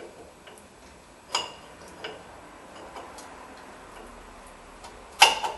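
Sharp metallic clicks of a brake-pad clip being pushed and snapped into a front disc-brake caliper bracket: one clear click about a second and a half in, a few faint ticks, and a louder double click near the end.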